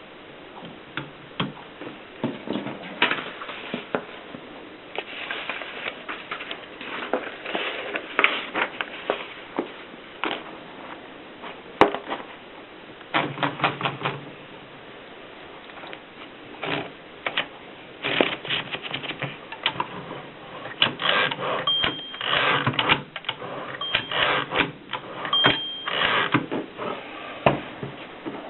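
Erika S manual typewriter being typed on: sharp key strikes in irregular bursts with short pauses, and a few brief high rings in the busiest stretch near the end.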